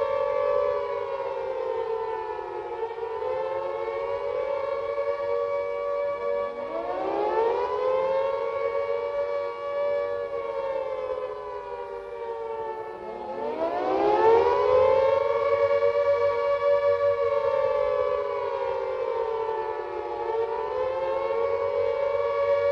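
Several civil defence sirens sounding together in the steady tone of Turkey's two-minute 10 November memorial siren, their pitches wavering and overlapping. Twice, about six and thirteen seconds in, another siren rises from a low pitch to join them, and the sound swells loudest soon after the second.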